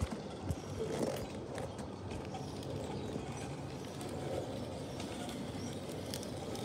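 Large-scale model diesel switcher locomotive running along garden railway track with a tank car, giving a steady low hum with light scattered clicks from the wheels on the rails.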